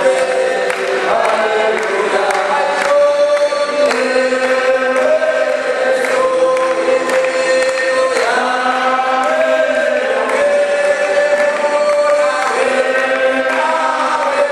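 Unaccompanied men's choir singing a hymn, one lead voice through a microphone over the others, holding long notes, with hand claps keeping time about twice a second.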